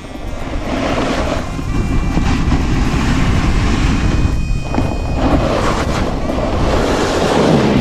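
Wind rushing over the camera's microphone and a snowboard sliding and carving on snow as the rider heads downhill: a loud rumbling noise that swells and eases with the turns.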